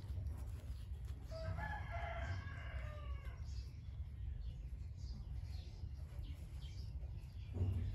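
A rooster crows once, about a second and a half in: a single pitched call of about two seconds that falls in pitch at the end. A steady low hum runs underneath, and a dull thump comes near the end.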